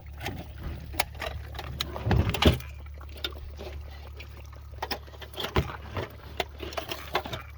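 Scattered knocks, clicks and crinkles from aluminium soda cans and their cardboard boxes, shot through by a rifle bullet, being handled and shifted about, with a louder burst of them about two seconds in. A steady low hum runs underneath.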